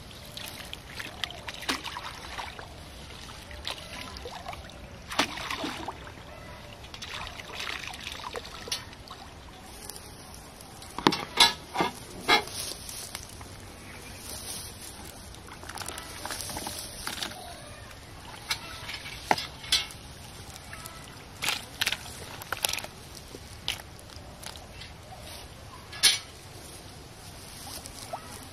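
Pond water sloshing and trickling off a round lift net as it comes out of the water, then irregular sharp taps and small splashes as the catch is shaken out into a plastic basin, loudest in a quick cluster near the middle.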